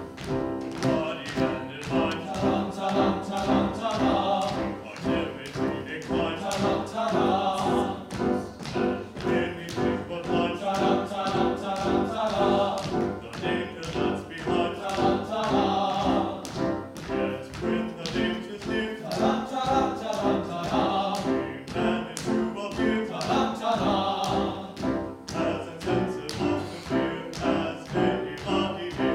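Operatic female voice singing with wide vibrato over an instrumental accompaniment that keeps a steady, even beat; the singing comes in phrases a few seconds long.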